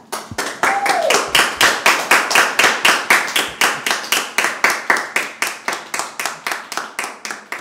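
Applause at the end of a performance, with loud, close hand claps at a steady pace of about five a second standing out. It tapers off toward the end. A short falling vocal cheer rises over it about a second in.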